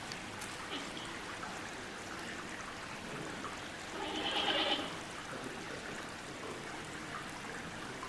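Giant panda giving one short growling call, under a second long, about four seconds in, over a steady rushing hiss.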